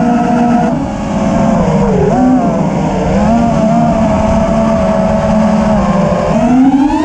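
FPV racing quadcopter's brushless motors and propellers whining, heard through its onboard camera with wind rumble on the microphone. The pitch dips and wavers about two seconds in and rises steeply near the end as the throttle is pushed up.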